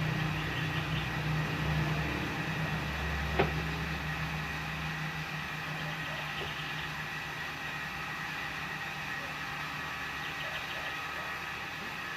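Automatic washing machine running with a steady hum; a low rumble under it eases off about five seconds in. A single sharp click comes a few seconds in.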